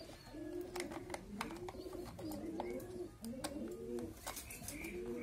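Pigeons cooing over and over in low, arching phrases about once a second. Light scattered clicks of a screwdriver against a plastic toy car's underside are heard over them.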